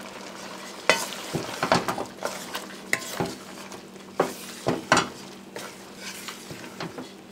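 Wooden spoon stirring a thick chickpea and mushroom curry in a metal pot on the stove, with irregular knocks and scrapes of the spoon against the pot starting about a second in, over a steady low hiss from the cooking pot.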